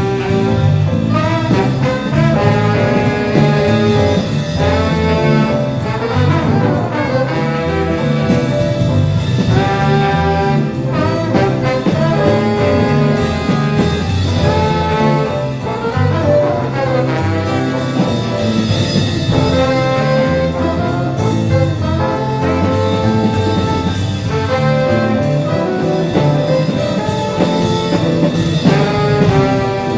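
Live jazz big band playing, with trumpets and trombones sounding sustained melody lines over a steady beat.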